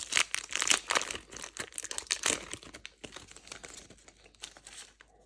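Magic: The Gathering collector booster pack's foil wrapper being torn open and crinkled, a dense crackling that is loudest for the first two to three seconds and then dies away.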